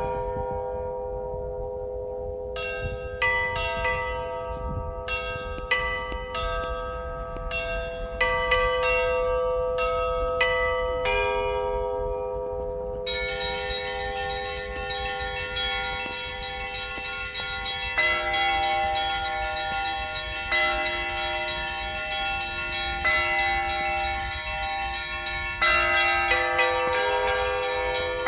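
Russian Orthodox church bells rung together in a zvon: deep bells hum steadily underneath while lighter bells strike in a loose pattern. About halfway through, the small bells break into fast, dense ringing.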